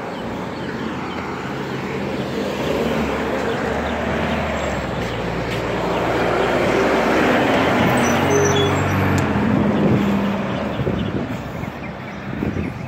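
Diesel engine of a garbage compactor truck driving past close by, growing louder to its peak partway through and fading away near the end.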